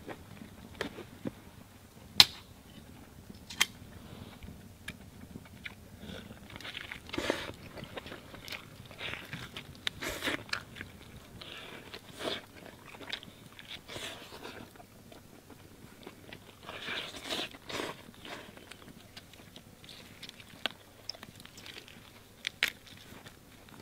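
A person biting into and chewing roasted rabbit meat close up, irregular bites and chews with sharp crunches, the loudest crunch about two seconds in.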